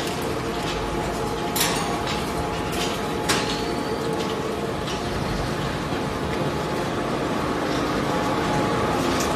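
PET bottle and film grinder and its feed conveyor running, a steady loud mechanical drone with a few sharp clicks, the loudest about one and a half and three and a half seconds in.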